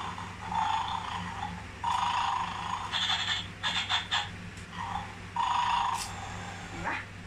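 Bad Dog bone-stealing game toy playing its snoring sound through its small built-in speaker: thin, tinny snores that repeat about once a second. A few sharp plastic clicks come about halfway through as the tongs pick at the bones in the toy's dish.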